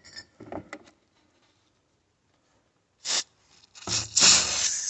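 Aerosol can of foaming air-conditioner coil cleaner spraying: a short hiss about three seconds in, then a steady hiss starting near the end.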